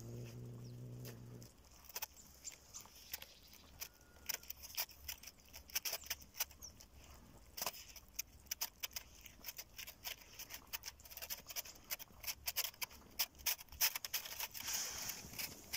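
Two cats eating from a plastic dish, with an irregular run of small clicks and crunches throughout. A low steady hum sounds for the first second and a half and then cuts off.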